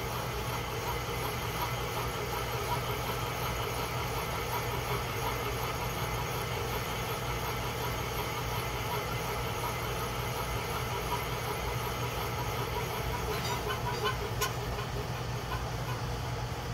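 Milling machine spindle turning a boring head as it cuts out the bore of a Mopar 440 connecting rod to take a bushing: a steady machine hum with the cutter working. A few faint clicks come near the end.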